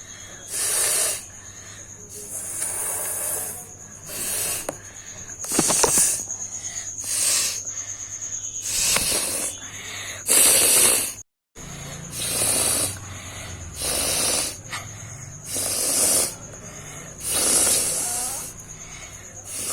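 A person blowing hard through the nose over and over: a dozen or so sharp, hissing blasts, about one every second and a half, as she tries to force mucus out.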